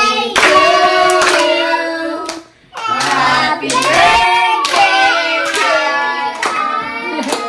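A group of adults and children singing together and clapping in time, roughly one clap a second. The singing drops out briefly about two and a half seconds in.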